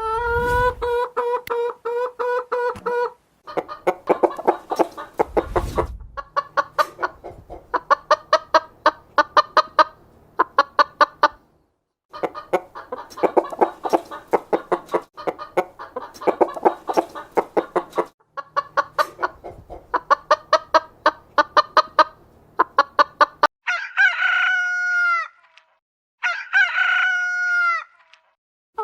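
Chickens clucking and cackling in long runs of rapid, repeated calls, broken by short silent gaps, then two drawn-out crows near the end.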